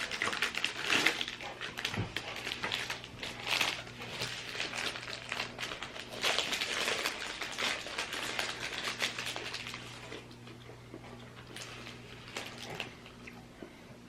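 Snack packaging crinkling and rustling in irregular bursts as the olive oil cookie is handled and opened, thinning out after about ten seconds.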